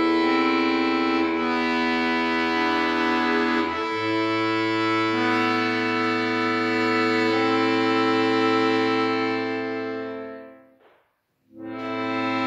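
Piano accordion playing slow, held chords, with a low bass note under them from about four seconds in. About ten seconds in the chord fades away to a brief silence, then a new chord starts.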